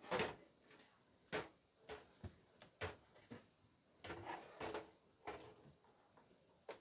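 Handling noises: a string of irregular knocks and clunks, loudest right at the start, as hard objects are moved about and set down.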